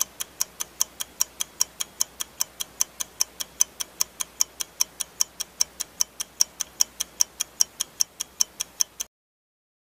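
Clock-tick sound effect for a countdown timer: fast, even ticks, about five a second, that stop abruptly near the end.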